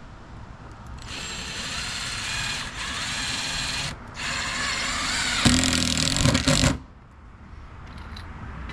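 Power drill driving screws into deck boards: two runs of steady motor whine, each a few seconds long, the second turning louder and deeper near its end before stopping abruptly.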